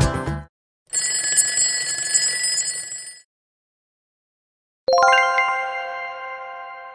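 Time's-up sound effect: a bell rings for about two seconds as the puzzle countdown runs out. After a short silence, a single bright chime sounds suddenly and rings out slowly, marking the reveal of the answer.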